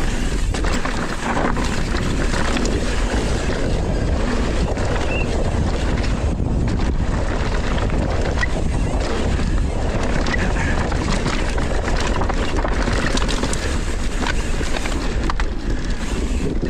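Wind rushing over an action camera's microphone as a downhill mountain bike rolls fast on dusty dirt, with tyre noise and scattered clicks and rattles from the bike over bumps.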